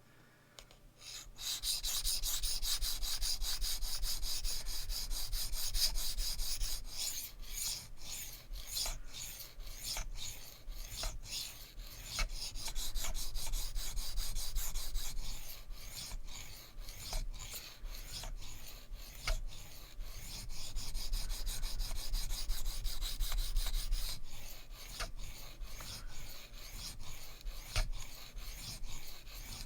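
S35VN steel knife blade stroked back and forth on the coarse 320-grit side of a Sharpal 162N diamond sharpening stone: a continuous scraping rasp that starts about a second and a half in. This is the coarse reprofiling stage, grinding the edge to raise a burr.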